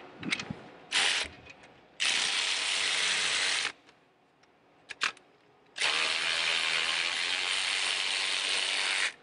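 Cordless ratchet running in three bursts, a short blip about a second in, then one of under two seconds, then a longer run of about three seconds near the end, spinning off the last nut on the turbocharger. A couple of small clicks come between the runs.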